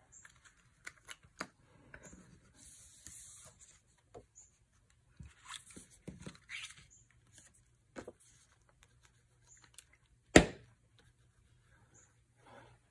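Card stock and paper being handled and shifted on a tabletop: faint rustles and light taps, with one sharp knock about ten seconds in.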